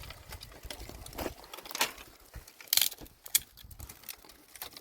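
Dry twigs and brush crunching and snapping, with a handful of sharp, irregular cracks over a faint rustle.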